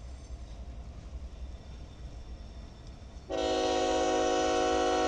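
A locomotive air horn sounds one long chord starting about three seconds in, over the low rumble of a freight train passing.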